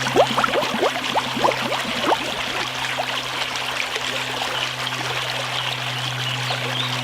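Aquarium water splashing and trickling, with bubbly gurgles rising in pitch during the first couple of seconds, over a steady low hum.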